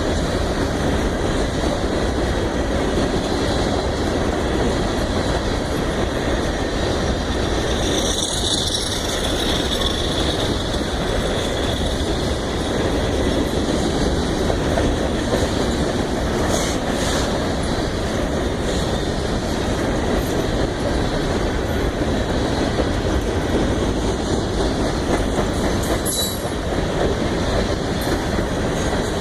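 CSX grain train's freight cars rolling past close by: steady wheel-on-rail noise with clickety-clack over the rail joints, a brief high wheel squeal about eight seconds in, and a few sharp clanks later on.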